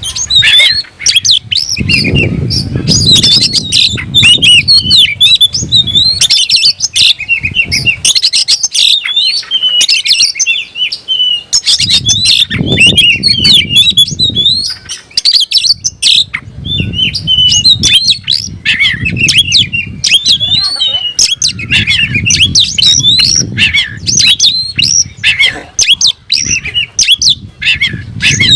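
Oriental magpie-robin (kacer) singing nonstop: a loud, fast stream of varied whistles, trills and harsh notes. This is its vigorous fighting song, aimed at a rival. Low thudding noise comes and goes several times underneath.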